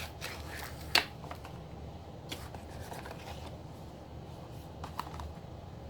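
Product packaging being handled and opened by hand: scattered rustles and small clicks, with one sharp click about a second in.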